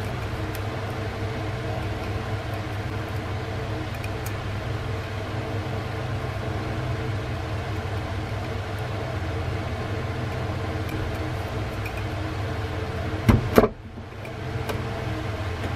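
A steady low mechanical hum, like a fan or small motor running. Near the end, two sharp knocks as the steel hammer head is set down on the wooden bench.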